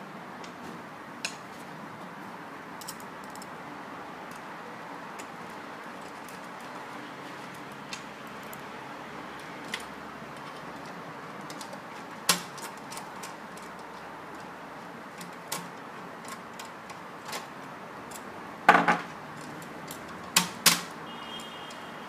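Scattered light metallic clicks and taps of a Phillips screwdriver and screws working against a smart lock's metal mortise body as its fixing screws are driven in. A few sharper knocks come near the end.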